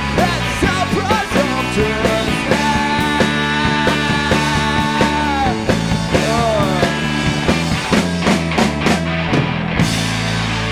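Rock band playing live, with drums, bass and guitars in an instrumental stretch; a lead melody line holds notes and bends in pitch over the steady beat.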